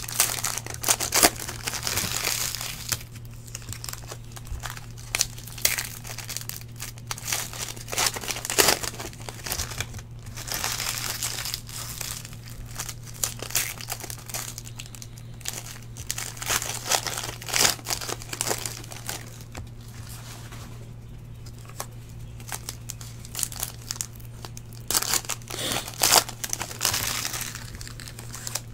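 Plastic wrappers of Panini Prizm football card packs crinkling and tearing as the packs are ripped open and the cards handled, in irregular bursts throughout. A steady low hum runs underneath.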